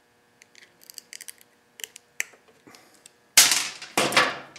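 Light metallic clicks and clinks of a small hand tool working a broken piece of spark plug out of a spark plug wire cap, then two loud, rough noises, each about half a second long, near the end.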